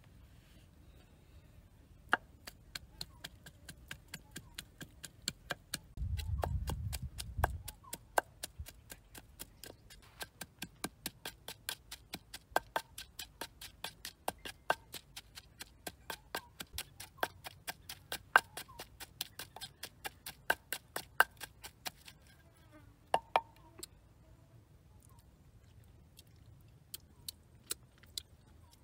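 Wooden pestle pounding chilies and garlic in a clay mortar: a steady run of sharp knocks, about three a second, that stops about three-quarters of the way through, with a few more knocks near the end. A brief low rumble sounds early on under the knocking.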